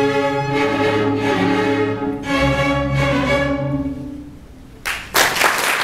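String orchestra of violins, cellos and double bass playing two long final chords that ring out and fade away. About five seconds in, applause breaks out.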